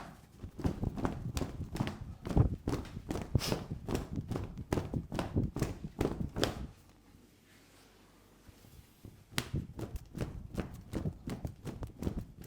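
Rapid rhythmic slapping and tapping of hands on a head and shoulders in an Indian head massage, about four to five strikes a second, pausing for a couple of seconds after about seven seconds before starting again.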